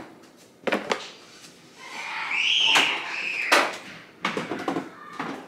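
Kitchen handling sounds: a few sharp clicks and knocks of containers being moved, a short scraping stretch in the middle, and a cluster of knocks and a clunk near the end as a refrigerator door is pulled open.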